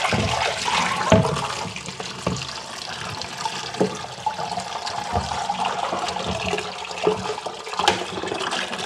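Kitchen tap running into a sink while sliced bamboo shoots are rinsed, water pouring and splashing through a strainer into a plastic bowl, with a few light knocks.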